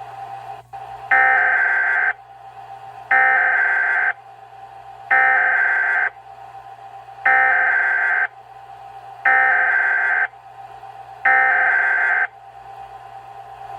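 Weather radio SAME (Specific Area Message Encoding) data bursts: six harsh, screechy digital tone bursts, each about a second long with a second's gap between them, encoding a tornado warning header. A fainter steady tone and a low hum run underneath.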